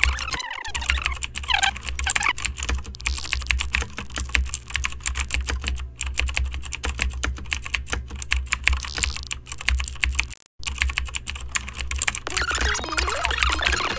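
Fast, continuous typing on a computer keyboard: a dense stream of key clicks over a low steady hum, broken by a brief dropout about ten and a half seconds in.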